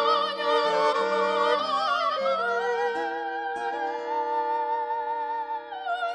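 Soprano with violin and guitar accompaniment performing a slow romanza: a high melody with wide vibrato that glides up and back down over held lower notes.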